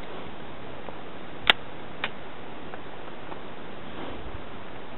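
A single 10mm pistol shot from a Glock 20, a short sharp crack about a second and a half in, followed half a second later by a fainter crack, over steady background hiss.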